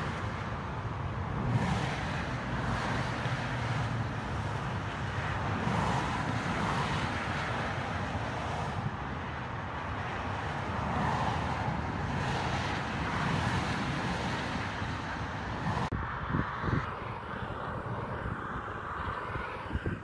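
Motorway traffic: a steady rush of tyres and engines that swells and fades as vehicles pass, with an abrupt change in the sound about three-quarters of the way through.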